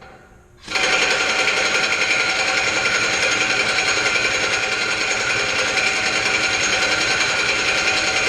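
Impact wrench banging and rattling on a disc harrow's gang-axle nut, starting about a second in and running steadily without the nut coming loose.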